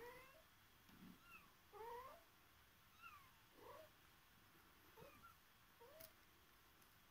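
Kitten mewing: a run of faint, short, high mews, each bending up or down in pitch, about one a second.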